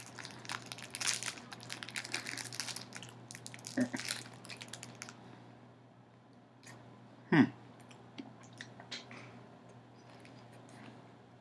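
Clear plastic wrapper crinkling and crackling in the hands for about the first five seconds, then a short falling hum of the voice about seven seconds in, followed by a few small clicks and chewing sounds.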